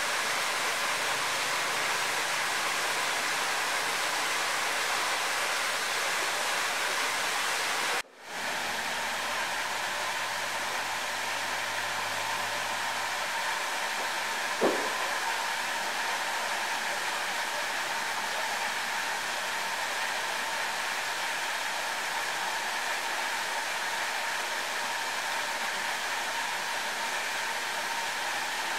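Steady rush of flowing water. It drops out briefly about eight seconds in, and a single short sharp sound comes about fifteen seconds in.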